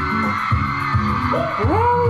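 Pop music from a live stage performance, with a singer's voice bending up and down near the end.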